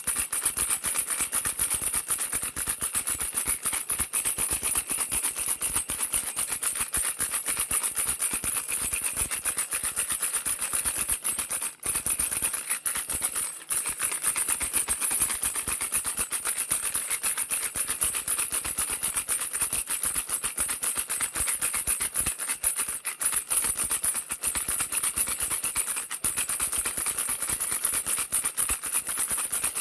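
Baby rattle shaken rapidly and without pause, a dense rattling, with a brief break about twelve seconds in.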